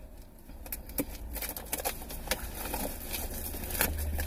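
Plastic shrink wrap being torn and peeled off a sealed box of trading cards, crinkling and crackling in scattered irregular clicks.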